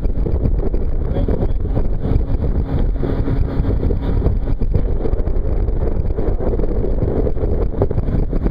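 Motorboat underway at speed: a steady engine and water rush, with wind buffeting the microphone.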